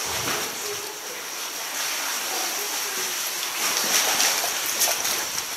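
Seawater sloshing and splashing around a sea kayak inside a sea cave, with a couple of louder splashes about four and five seconds in.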